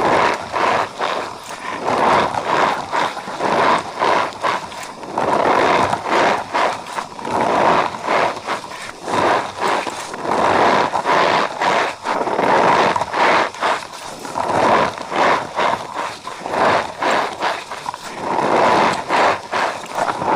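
Cornstarch powder being squeezed and pressed by hand, squeaking and crunching in repeated squeezes about every one to two seconds.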